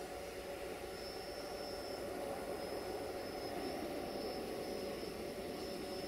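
Steady engine drone with a thin high whine that comes and goes.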